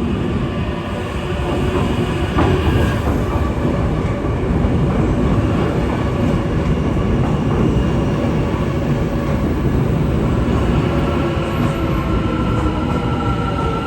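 Hyundai Rotem metro train running on the track, a loud, steady rumble of wheels and running gear. A steady high whine comes in near the end.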